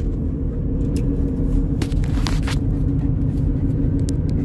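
Steady road and engine rumble inside a car cabin while driving, with a constant low hum, and a few faint short clicks about two seconds in.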